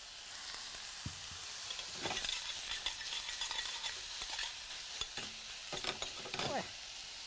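Vegetables sizzling in hot oil in a stainless steel saucepan as they are tossed and stirred with a metal spoon, which clinks and scrapes against the pan a few times. The sizzle picks up about two seconds in.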